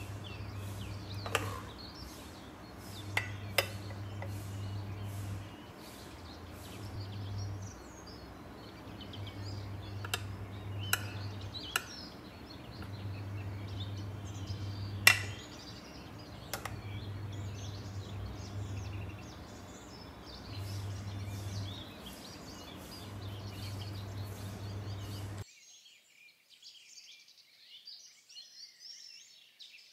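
A few sharp clinks of utensils against dishes over a low hum that switches on and off every couple of seconds. About 25 seconds in, this cuts to faint birds chirping.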